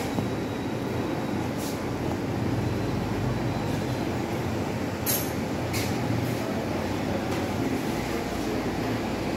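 Steady low rumble of indoor background noise, with two brief sharp sounds a little past the middle.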